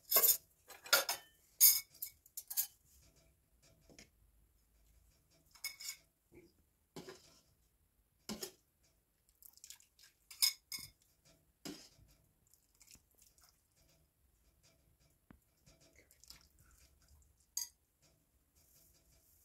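A metal ladle clinking against a cooking pot and a bowl as soup is ladled out. A quick run of clinks comes in the first few seconds, then single clinks every second or two.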